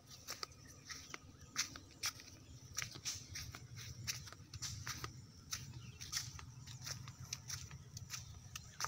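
Footsteps and phone-handling noise from someone walking along a dirt path, heard as irregular sharp clicks and taps, one to three a second, over a steady low rumble.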